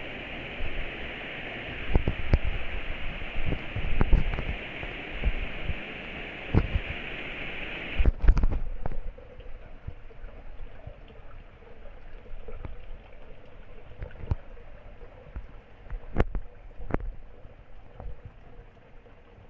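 Torrential rain pouring down in a dense steady hiss, with low knocks and drops striking close by. About eight seconds in there is a loud knock, and the rain becomes much quieter and more muffled.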